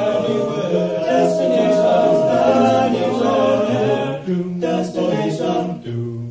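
Male a cappella group singing the closing bars of a song in close harmony, changing chords a few times before the voices stop at the very end.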